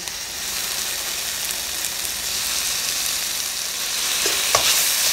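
Julienned bell peppers and carrot sizzling in a hot wok on high flame as soy-based sauce is poured in, a steady hiss that grows a little louder toward the end. A couple of knocks of the spatula against the wok about four and a half seconds in.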